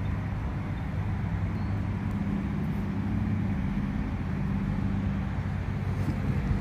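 Steady low engine drone with traffic noise around it, holding one pitch with no change.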